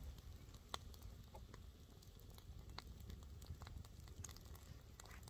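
Wood bonfire crackling faintly: scattered single sharp pops over a low steady rumble.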